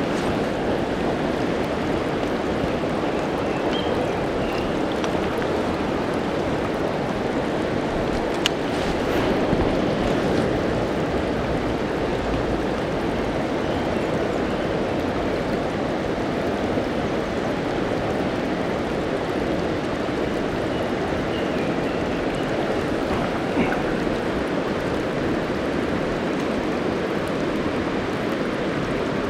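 Mountain river rushing over rocks: a steady, even roar of flowing water, with one brief click about eight seconds in.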